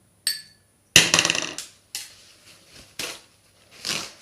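Kitchenware knocking while grated red onion is strained through a sieve to get its juice: a short ringing clink of glass, then a loud knock about a second in and softer knocks roughly once a second.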